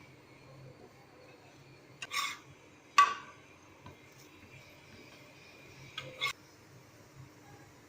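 Kitchenware being handled: a short scraping rustle about two seconds in, then a sharp, loud knock with a brief ring about a second later, and two softer knocks around six seconds.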